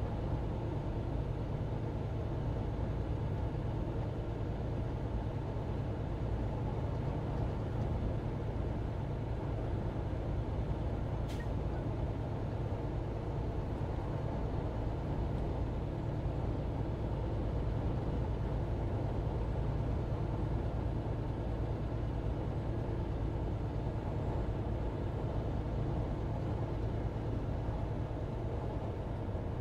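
Steady drone of a semi-truck's engine and tyres heard inside the cab while cruising at highway speed, about 65 mph. A faint tick about eleven seconds in.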